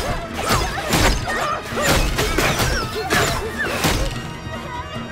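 Cartoon sound effects of giant spear-like forks shooting out of stone walls and striking home: a rapid series of sharp crashing impacts, about six in four seconds, over dramatic background music.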